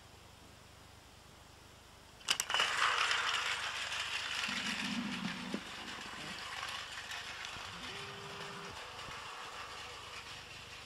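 Battery-powered Takara Tomy Plarail toy trains running on plastic track: a steady gear-motor whir with a clattering rattle. It starts suddenly about two seconds in with a sharp click, then slowly fades.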